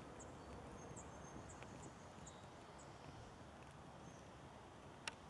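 Near silence: faint outdoor ambience with a few short, high bird chirps, and one sharp click near the end.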